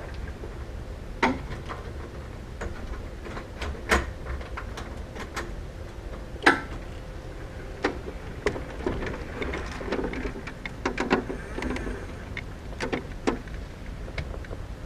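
Wheelchair rolling out through a doorway, over the threshold and onto a concrete walk: irregular knocks and clicks over a low rumble, with a cluster of rattles about ten seconds in.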